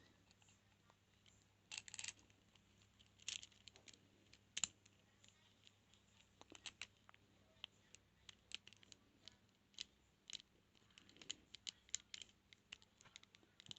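Lock picks and a tension wrench working inside a transparent plastic practice padlock: faint, irregular small clicks and scrapes, some sharper ticks among them.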